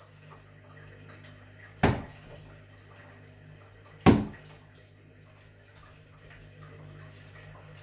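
Two darts thudding into a dartboard hung on a door, sharp single impacts about two seconds apart, over a faint low steady hum.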